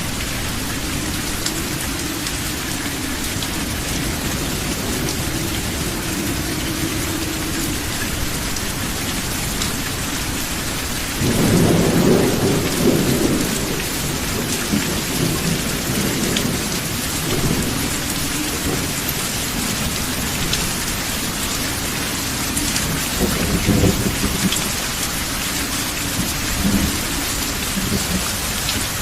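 Steady heavy rain with thunder: a rumble breaks in suddenly about a third of the way through and rolls on for several seconds, and shorter rumbles follow near the end.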